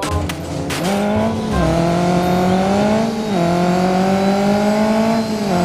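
Race car engine accelerating hard through the gears, opening with a few sharp clicks. Its pitch climbs steadily and drops abruptly with each of three upshifts.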